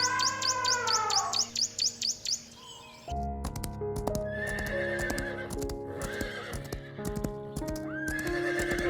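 A horse whinnying several times, with sharp hoof clops, over soft background music. For about the first three seconds a rapid run of high chirps plays instead, then cuts off suddenly.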